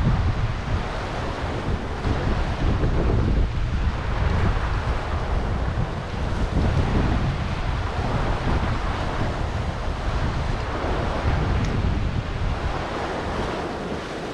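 Sea surf washing against rocks in swells every few seconds, with wind buffeting the microphone in heavy low rumbles.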